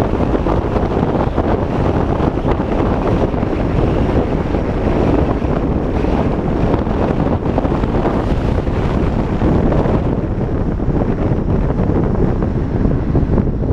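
Wind buffeting the microphone of a camera on a moving vehicle: a loud, steady rushing with most of its weight in the low end. Its hiss thins a little about ten seconds in.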